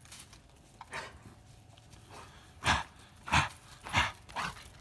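Dogo Argentino giving about five short, sharp snorts with its nose in the snow, the louder ones in the second half. The owner takes them for sneezes from eating snow.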